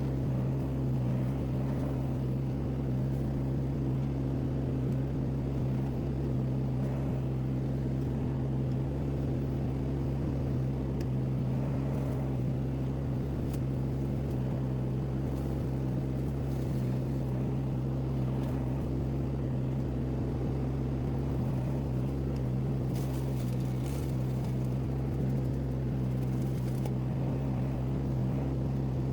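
Mini skid steer loader's engine running steadily at a constant speed, with an even hum that does not rise or fall and carries no load.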